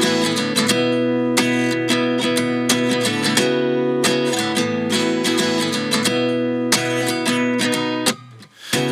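Background music: an acoustic guitar intro with strummed and picked chords in a steady rhythm, dropping out briefly near the end.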